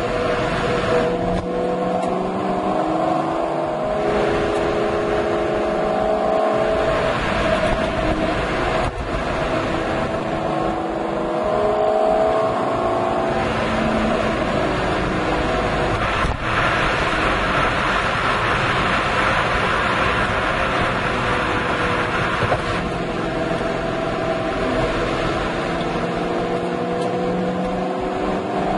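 Ford Mustang Shelby GT500's supercharged V8 exhaust on the move, heard through a microphone in the trunk: the engine note rises and falls several times as the car pulls and eases off, with brief dips around 9 and 16 seconds in. A heavy rush of wind noise on the unshielded microphone runs under it.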